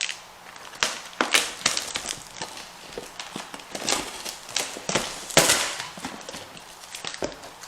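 Toy parts and packaging being handled while a piece is freed from its box: a string of irregular plastic clicks, taps and crinkles, with a longer rustle about five and a half seconds in.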